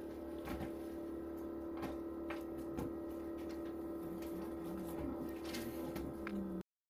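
Steady machine hum with a strong, even tone, over scattered clicks and rustles of papers and binders being handled on a table. The sound cuts off suddenly near the end.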